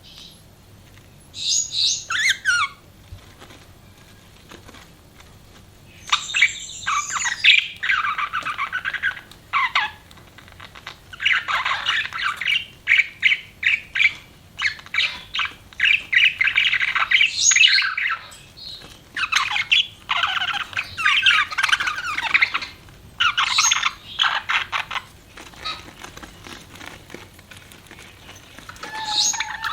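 Pet budgerigars chirping and chattering in quick bouts: one short burst, a pause of a few seconds, then near-continuous chatter with brief gaps.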